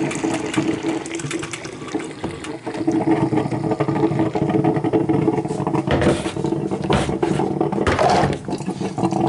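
Water running, with a steady hum underneath and a few louder, sharper splashes or knocks about six to eight seconds in.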